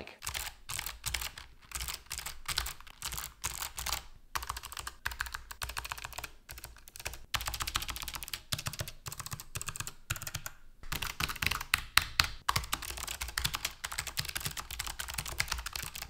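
Typing on a Logitech G915 TKL low-profile mechanical keyboard with clicky switches: a fast run of sharp key clicks, more click than clack, broken by a few short pauses.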